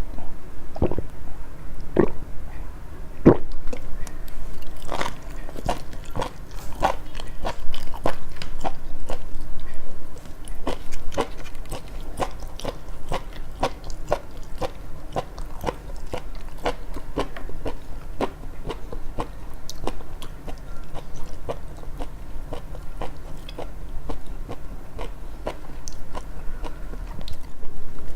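Close-miked chewing of sushi: a long run of short wet mouth clicks and smacks, about two to three a second, with a few louder bites in the first few seconds.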